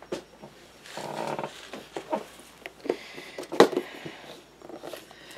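Rustling and scattered light clicks of small items being handled at a tabletop, with one sharper click about three and a half seconds in.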